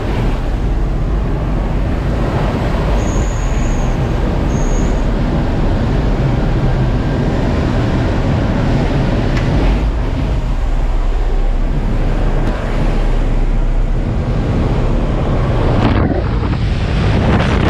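Propeller plane's engine drone heard inside the cabin with the jump door open, mixed with the rush of wind through the doorway; the wind noise changes sharply near the end as the skydivers move out of the door.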